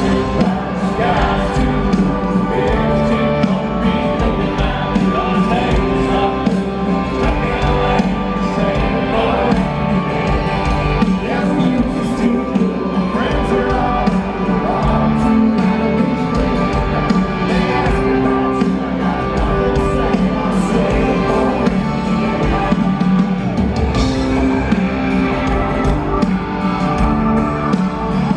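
Live country-rock band playing: a lead vocal over acoustic and electric guitars and drums, heard from among the stadium audience.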